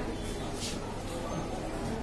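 Indistinct background voices and chatter of people in a crowd, with no clear words.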